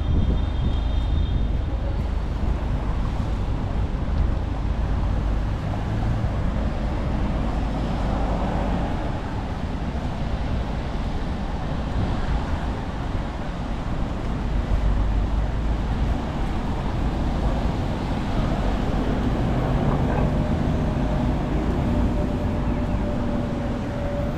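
City street traffic on wet roads: a steady noise of cars passing with tyre hiss and a low rumble. A steady engine drone joins in near the end.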